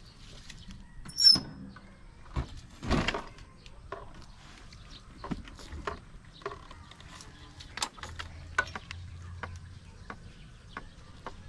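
Scattered clicks and knocks of a motor scooter being handled and mounted, with a brief high squeak about a second in and a few heavier thumps soon after.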